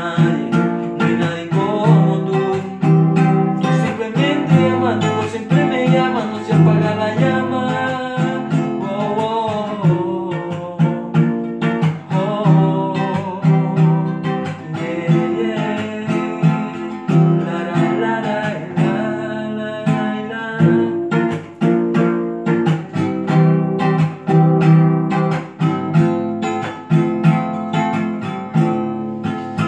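Acoustic guitar, capoed, strummed in a steady rhythm, with a man's voice singing along over the first two-thirds; from about twenty seconds in the strumming carries on mostly alone.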